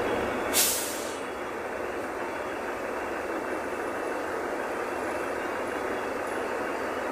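City bus in slow traffic, steady engine and road noise heard from inside the cabin, with one short, sharp hiss of air brakes about half a second in.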